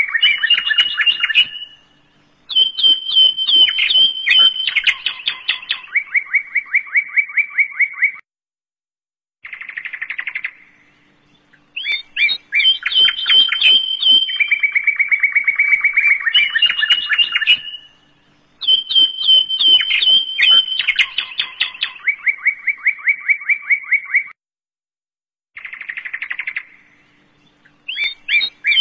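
Recorded birdsong: quick chirps and rapid trills in bursts with short silent gaps, the same sequence repeating about every 16 seconds as a loop.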